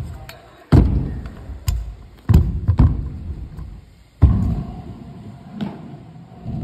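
Stunt scooter wheels rolling with a low rumble on a hard skatepark floor, broken by about half a dozen sharp, irregularly spaced clacks as the scooter hops and lands. The clacks ring briefly in the large hall.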